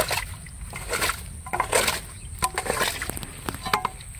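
Shallow muddy water sloshing and splashing in short, irregular bursts as hands and a steel bowl scoop through it.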